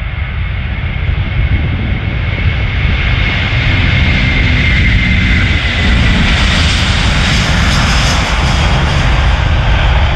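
Airbus A330 twin-engine jetliner on its takeoff roll at takeoff thrust. The jet engine noise grows louder as the plane runs past, and a thin fan whine falls slightly in pitch through the middle of the run.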